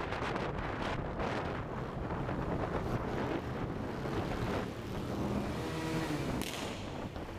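Wind rushing over the microphone of a KTM Duke 390 motorcycle riding at speed in traffic, with its engine running underneath. About five seconds in, a brief pitched drone rises above the rush, ending with a sharp knock.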